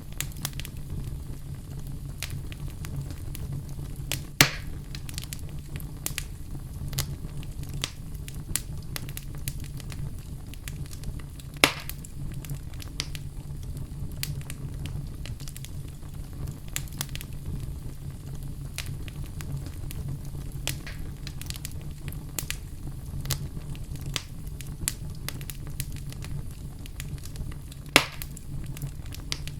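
Campfire crackling: a steady low rumble of burning wood with frequent small crackles, and three louder pops, about four seconds in, about twelve seconds in and near the end.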